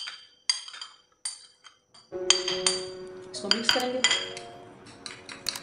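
Metal spoon clinking sharply against a glass plate and a small ceramic bowl as spices are scraped into oil and stirred. Background music with sustained tones comes in about two seconds in, and the clinks carry on over it.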